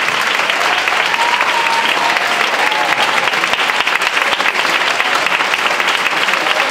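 Audience giving a standing ovation: many hands clapping, dense and steady.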